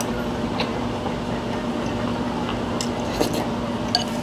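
A person eating ramen noodles: wet slurping, with a few sharp clicks of chopsticks against the bowl, over a steady low hum.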